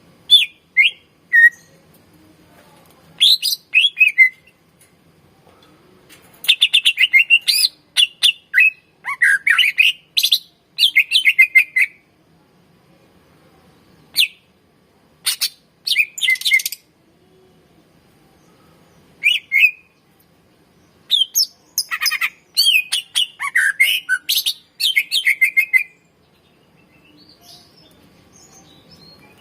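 Greater green leafbird (cucak ijo) singing in separate loud phrases of rapid chirps, chattering runs and sweeping whistled notes, with pauses of one to three seconds between phrases.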